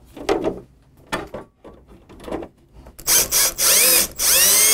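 Cordless drill driving sheet metal screws into a weather shield: quiet clicks of the bit and screw being set for the first couple of seconds, then a few short spurts of the motor about three seconds in and a longer run near the end with a rising motor whine.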